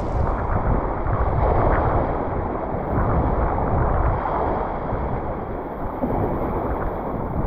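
Wind rumbling on the microphone over the steady wash of sea waves.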